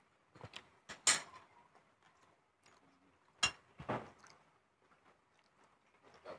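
Sparse eating sounds from people eating a meal by hand from shared dishes: a short noisy clatter about a second in, a sharp click about halfway through, and a few softer ticks, with quiet in between.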